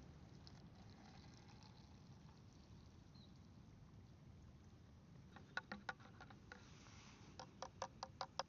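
Faint campfire crackle: sharp pops in two quick clusters in the second half, over the low steady rush of a forest stream.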